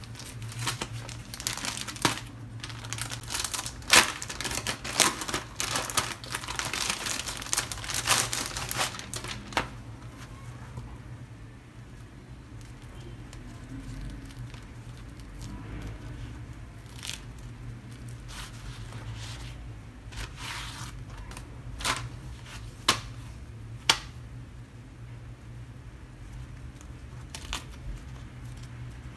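Plastic packet of thin spring-roll wrappers crinkling and rustling loudly as it is opened and handled for about the first ten seconds, then softer papery rustling as the wrappers are peeled apart, with a few sharp clicks about two-thirds of the way through.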